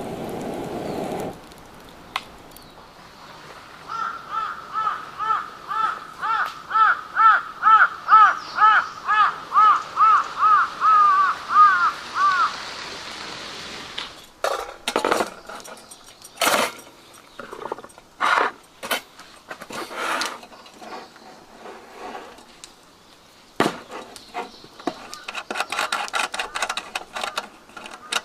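A bird calling in a quick series of about seventeen short, clear notes, about two a second and speeding up near the end. This is followed by scattered knocks and clatters.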